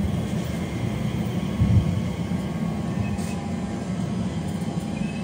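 Elizabeth line Class 345 electric multiple unit moving slowly along the platform, a steady low rumble with a brief louder bump a little under two seconds in.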